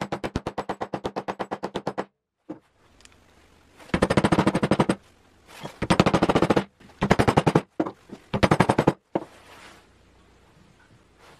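Hammer taps on wood in quick, evenly spaced runs of about ten a second: a two-second run, then four shorter runs, as wooden dowels and a plywood trunnion part are knocked into place.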